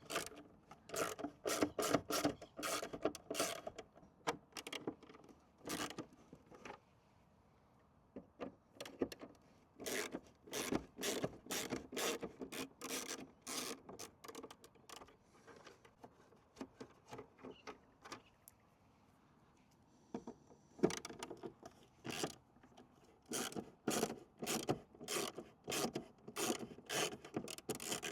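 T20 Torx driver backing small screws out of a van's plastic side-mirror housing: runs of short, sharp clicking and scraping strokes, broken by two brief pauses.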